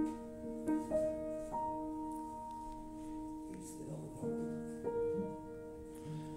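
Slow, soft piano music: single notes and chords held and changing every second or so.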